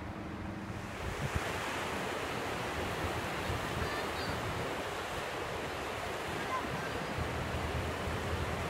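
Swollen, fast-flowing river water rushing and churning, with small waves breaking against a rocky bank, and wind on the microphone. The steady rush grows fuller about a second in.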